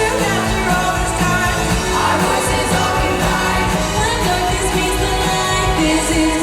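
Pop music: a group of young singers singing an arranged pop song over instrumental accompaniment.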